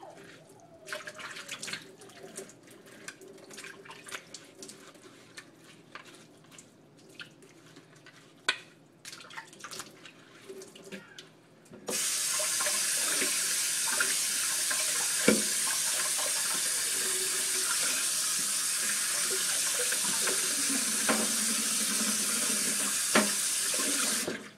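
Dishes clinking and clattering, then about twelve seconds in a kitchen tap is turned on and runs steadily into the sink, with a few knocks of dishes under the stream, and shuts off abruptly near the end.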